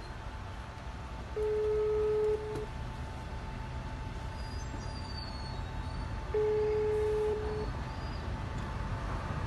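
Italian telephone ringback tone heard through a phone's loudspeaker: two one-second beeps at one steady pitch, about five seconds apart, as the outgoing call rings unanswered. Low street rumble underneath.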